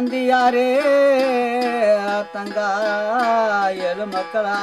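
A man singing a folk melody in long held notes that waver and slide down in pitch, accompanied by a gourd-bodied, stick-necked string instrument.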